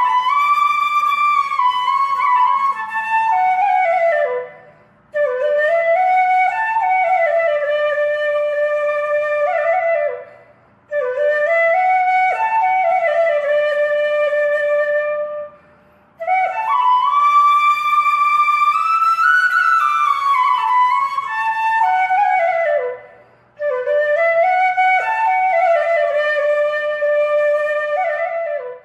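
Solo flute playing a slow, gliding melody in five long phrases, with a short pause for breath between each phrase.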